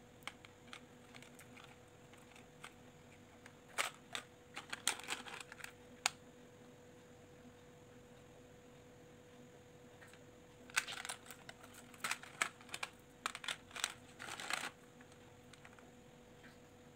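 Small plastic beads clicking and rattling against each other and the plastic tray as they are picked out and threaded onto a cord, in two runs of quick light clicks, a few seconds in and again past the middle.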